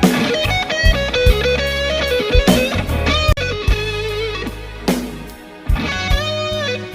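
Background music: an electric guitar playing a bluesy lead over bass and drums, with the guitar notes bending in pitch.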